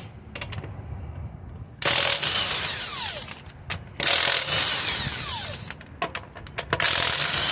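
Milwaukee 18-volt cordless impact wrench hammering lug nuts loose on a wheel, in three runs of a second or two each, starting about two, four and seven seconds in, each with a whine that slides down in pitch. Short clicks and knocks between runs as the socket is moved from nut to nut.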